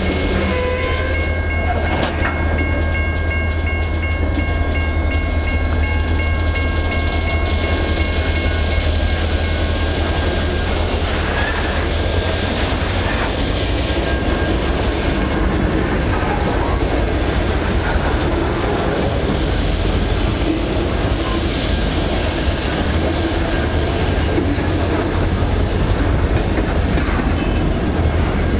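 Freight cars rolling past at close range: a steady rumble of steel wheels on rail with some clacking, and thin high-pitched wheel squeal, strongest in the first half.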